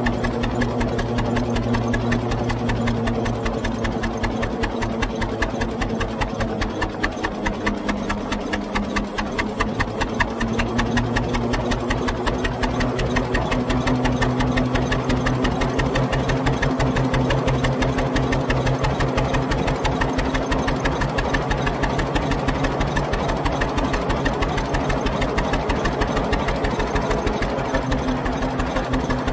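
1922 International Harvester 10-20 Titan tractor's two-cylinder engine running under load, a steady rapid beat of firing pulses. Its pitch sags for a few seconds about a quarter of the way in, then picks back up.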